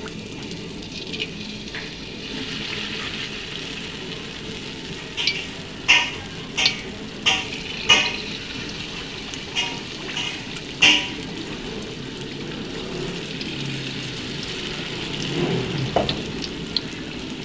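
Batter-coated banana pieces deep-frying in hot sunflower oil in a wok, a steady sizzle. Between about five and eleven seconds in, a string of about seven sharp, loud pops and crackles comes as more pieces are dropped into the oil.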